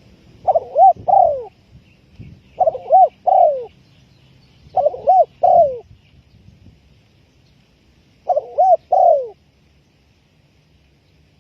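Spotted dove cooing: four phrases of three notes each, two short notes and then a longer one that falls in pitch, spaced a couple of seconds apart.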